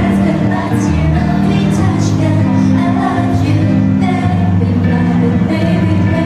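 A female pop vocal group singing live into handheld microphones over loud backing music with a steady bass line.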